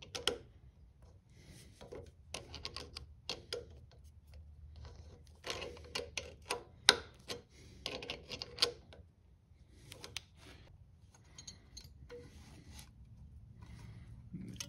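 Needle-nose pliers and small metal tools clicking and scraping on the valve tappet adjuster of a 1964 Honda 50 Super Cub engine, in irregular taps with pauses between, while the valve clearance is set from too tight.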